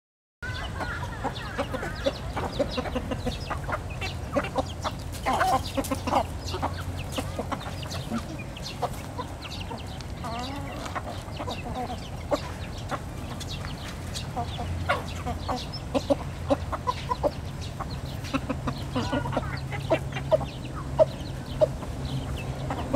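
A flock of chickens clucking as they feed, with short calls from several birds and many sharp clicks of beaks pecking feed off the ground. A steady low hum runs underneath.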